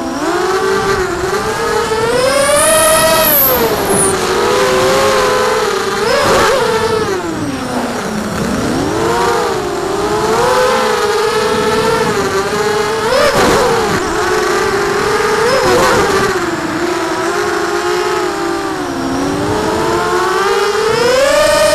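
Brushless motors and six-inch propellers of a 4S FPV quadcopter whining as picked up by its onboard camera. The pitch rises and falls continually with the throttle, swelling highest several times.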